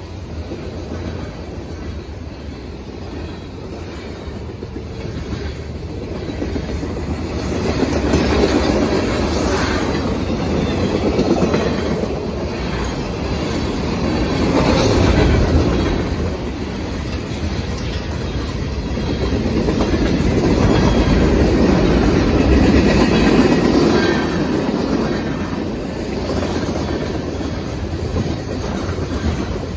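Freight train's covered hopper cars rolling past close by: a steady rumble of steel wheels on rail with clicks as the wheels cross rail joints, swelling and easing as the cars go by.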